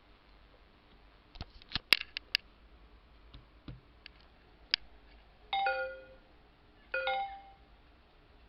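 A few sharp clicks, then the Windows XP device notification chime sounding twice, about a second and a half apart.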